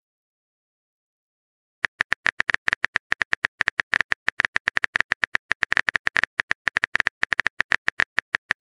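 Phone on-screen keyboard typing sound effect: a quick run of short, sharp key clicks, several a second, starting about two seconds in after a silence.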